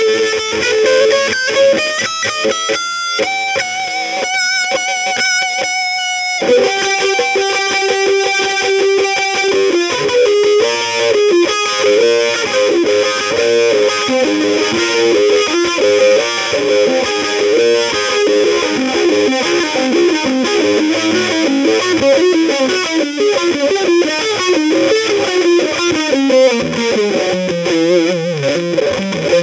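Music: a guitar with distortion and effects playing a lead melody of quick runs, holding a few wavering notes about three to six seconds in and running downward near the end.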